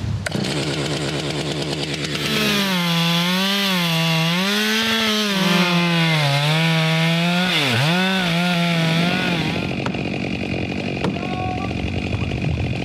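Two-stroke chainsaw running at high speed while cutting into a standing dead tree. Its pitch rises and falls as the bar meets the wood, with one sharp dip under load about eight seconds in, then drops back to a rougher, lower running sound near the end.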